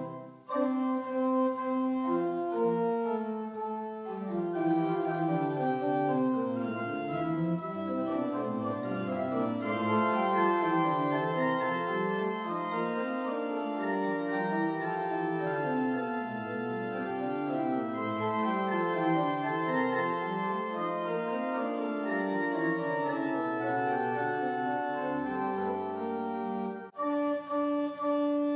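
Church organ playing a fast running line that winds up and down in the lower voices beneath held chords. The music dips briefly just after the start and breaks off for a moment near the end before a new chord.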